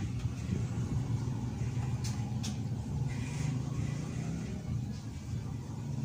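A steady low rumble, with two faint short clicks about two seconds in.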